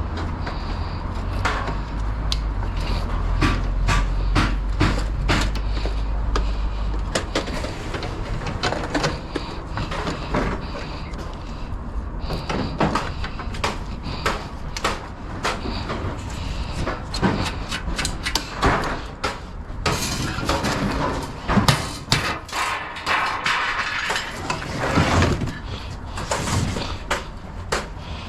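Scrap metal being handled and loaded: a long series of irregular clanks and knocks. A low steady rumble underneath stops about seven seconds in.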